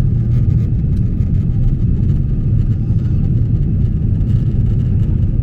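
Jet airliner cabin noise in the climb after takeoff: a steady low rumble of the engines and airflow heard from inside the passenger cabin.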